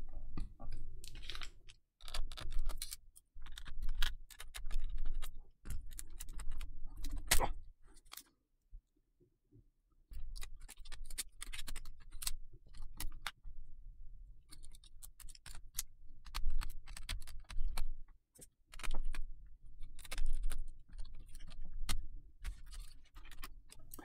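Irregular clicks, taps and knocks of hands working inside an opened laptop: plastic connectors and wires being unplugged and a small screwdriver working on the motherboard. The clicking stops for a second or two about eight seconds in.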